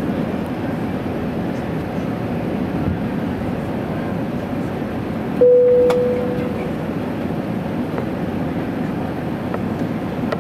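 Steady low cabin rumble of an Emirates Airbus A380 descending through cloud: engine and airflow noise heard from inside the cabin. About halfway through, a single cabin chime sounds on one pitch and fades over about a second. It is the loudest sound, and a faint click follows just after it.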